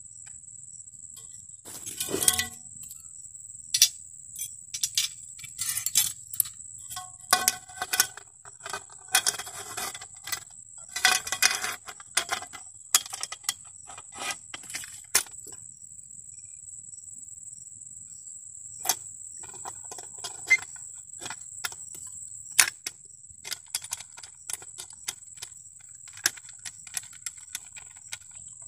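Irregular metallic clinks, scrapes and rattles as an egrek (curved oil-palm harvesting sickle) and its wire ties are handled and fitted onto a long pole, busiest in the first half and sparser later. A steady high-pitched insect drone runs behind.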